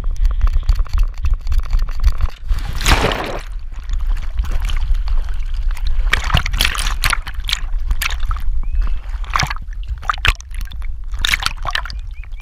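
Border collie's body-mounted camera: quick paw footfalls on the jetty, then a big splash about three seconds in as the dog jumps into the lake, followed by irregular sloshing and splashing around the camera as it swims. A constant low rumble sits under it all.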